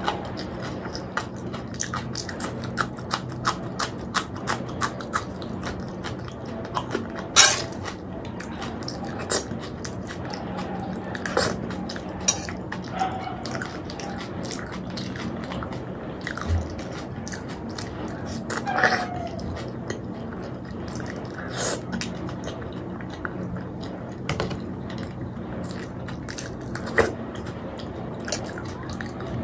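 Close-miked chewing of puri and chole (chickpea curry), with many short wet mouth clicks and smacks and a few louder ones now and then.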